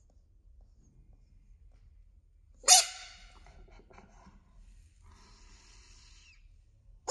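A large frog gives one loud, sharp defensive scream about two and a half seconds in, fading within about half a second: a warning cry at a hand reaching toward it. A quieter, longer rasping sound follows about five seconds in.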